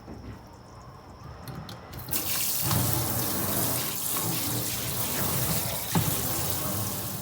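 Water from a kitchen tap running into a sink. It is turned on about two seconds in, runs steadily and loudly, and cuts off at the end.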